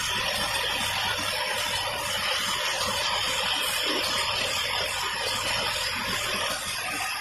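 Three-part e-cigarette cap assembly machine running, its vibratory bowl feeders and pneumatic rotary assembly table making a steady, even hissing noise.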